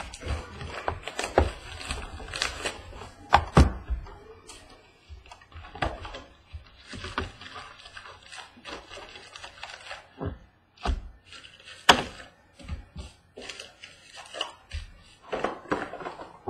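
A sealed cardboard box of foil-wrapped trading-card packs being unwrapped and emptied by hand: plastic and foil crinkling, with irregular knocks as the box and the packs are handled and set down on a table. The sharpest knock comes about twelve seconds in.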